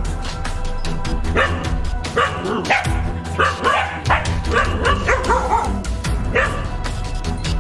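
Dogs barking repeatedly in a quick run of sharp barks, set off by a snake they are confronting, starting about a second and a half in, over background music with a steady beat.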